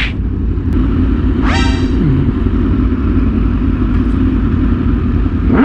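Superbike engine running steadily while riding, with a heavy low rumble, and a short rising pitched note about one and a half seconds in.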